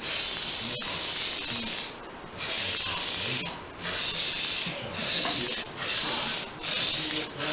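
Aerosol spray paint can spraying in repeated hissing bursts, about six in a row, each roughly a second long with brief pauses between, as a coat of hammered-finish paint goes onto the metal hood. A short click comes about a second in.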